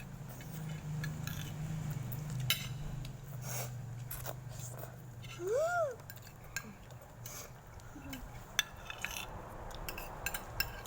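Spoons and forks clinking and scraping on plates during a meal, in scattered light clicks over a steady low hum. A little over halfway through there is one short call that rises and falls in pitch.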